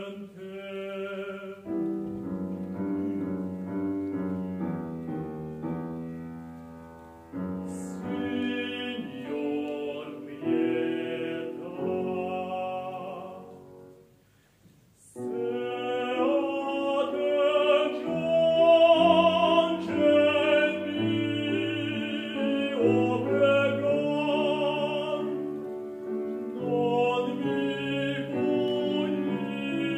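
Baritone singing a slow classical aria with wide vibrato over grand piano accompaniment. The voice drops out for a short piano passage near the start. About halfway through, the music fades to a brief near-silent pause before the singing comes back in, fuller and louder.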